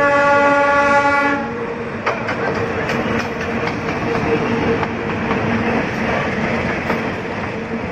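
Diesel locomotive sounding its horn in one blast of about a second and a half, then running past close by with a steady engine drone and wheels clattering over the rail joints.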